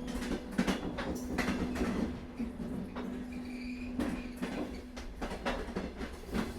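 Train running on rails: a steady low rumble with irregular clicks and knocks from the wheels passing over the rail joints.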